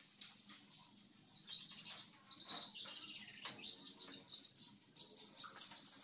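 Long-tailed shrike (cendet) singing in a fast run of high, chirping notes that starts about a second and a half in and keeps going, part of the young bird's mimicking song.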